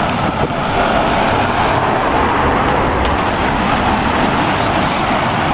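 MAN concrete mixer truck's diesel engine running as the truck pulls out and turns, with steady road noise.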